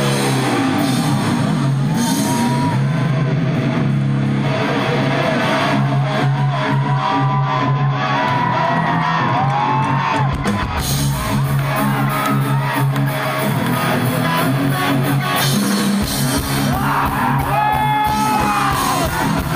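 Live rock band playing through the stage sound system: electric guitars, bass and drums, with a voice whooping and yelling over the music at times.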